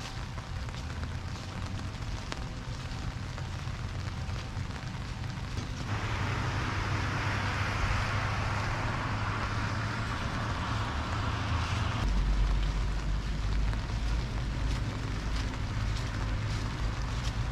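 Steady rain falling, a soft hiss over a low rumble. The hiss grows brighter for about six seconds in the middle, then drops back as a deeper rumble sets in.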